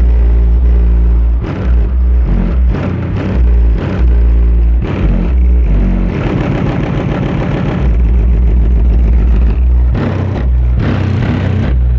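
Bass-heavy music played loud through a PowerBass 1000 W RMS car subwoofer. Deep bass notes change every second or so and dominate the sound.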